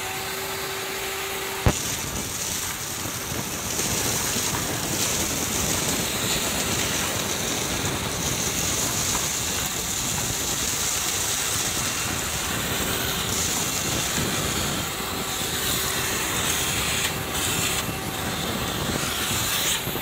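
Lotus 6-gallon wet/dry shop vacuum running steadily, a constant motor whine over a rush of air, as its hose sucks up a pile of dirt and dust from a tile floor. A single sharp knock a little under two seconds in.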